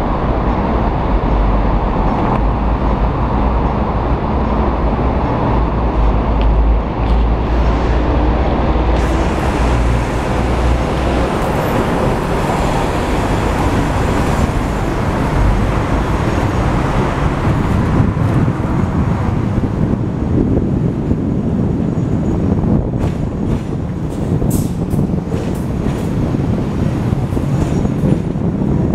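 Hong Kong double-decker electric tram running along its tracks, heard from on board the upper deck: a steady rumble of the wheels on the rails, heaviest in the first ten seconds or so, with a few sharp clicks in the last several seconds.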